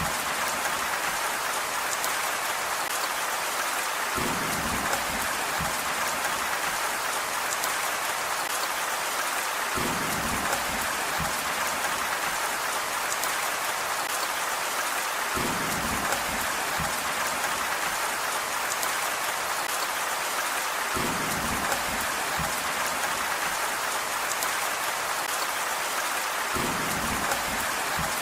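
Steady rain falling on a surface, an even hiss. A short low rumble swells up under it about every five and a half seconds.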